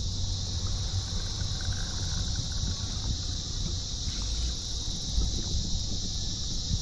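Wind rumbling on the microphone over a steady, high-pitched insect drone, with a faint thin whine for a second or two about a second in.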